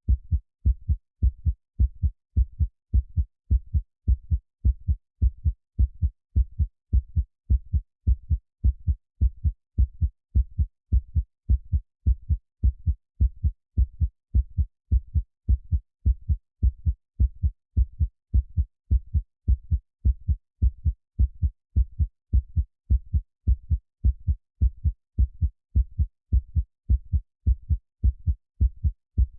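Heartbeat sound: a steady, even rhythm of low thumps, a couple each second, with silence between beats.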